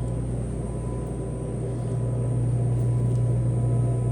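Steady low machinery hum with a faint high whine above it, unchanging throughout.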